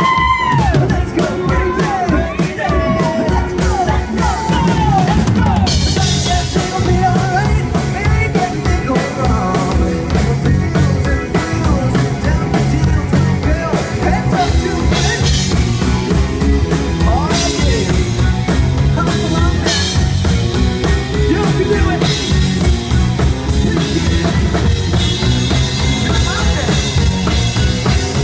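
Live band playing rock music at full volume with a steady drum-kit beat, singing over the first few seconds, and cymbals coming in about five and a half seconds in.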